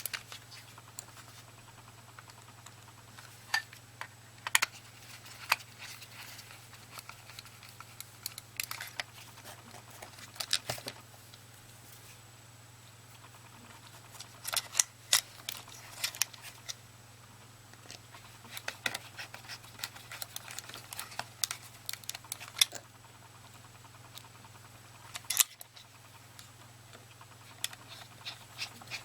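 Irregular clicks and taps of the small plastic parts of a Logitech cordless optical mouse being handled and fitted together by hand, in scattered clusters with short pauses between them.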